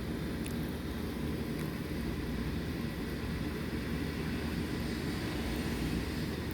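Steady low background rumble with a faint hum and no distinct events.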